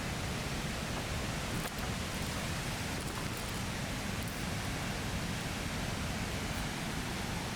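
Steady rushing of a waterfall, an even roar of falling water that does not change.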